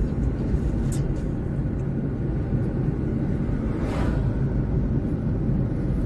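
Steady low rumble of engine and road noise heard inside a moving car's cabin, with a brief whoosh about four seconds in.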